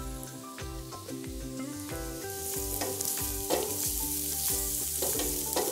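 Sliced sweet peppers, onion and garlic sizzling in margarine in a stainless steel skillet, stirred with a wooden spatula that scrapes the pan now and then. The sizzle grows louder about halfway through. Soft background music plays underneath.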